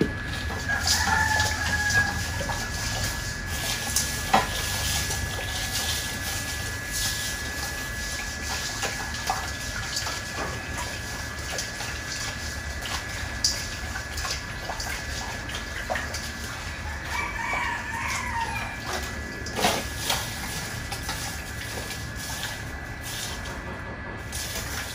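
Roosters crowing in the background, once near the start and again about two-thirds of the way through, over a steady high-pitched tone. Short clicks and splashes of hands working food in a metal bowl of water run underneath.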